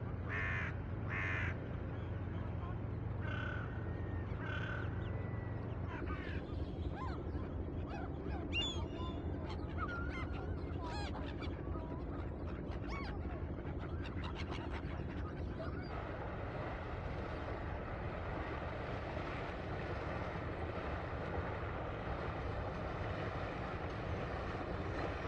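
A fishing boat's engine hums low and steady under a few bird calls for the first six seconds. Then a flock of gulls calls repeatedly for about ten seconds. From about sixteen seconds a steady wash of water and wind takes over.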